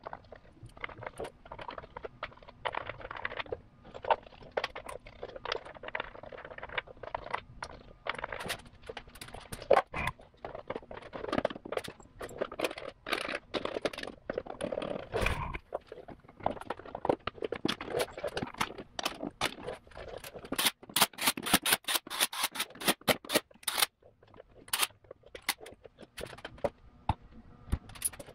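Plastic timing belt covers being handled and pressed into place on a Subaru EJ25 engine, with scattered knocks, scrapes and clicks of plastic on metal. About three-quarters of the way through comes a quick run of sharp clicks.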